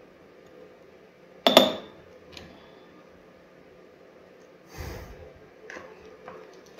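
A metal spoon clinks sharply against a glass jar of popcorn kernels about a second and a half in, with a brief ring. Later a spoon scrapes and rustles inside a paper pouch of mushroom spawn, with a few light taps near the end.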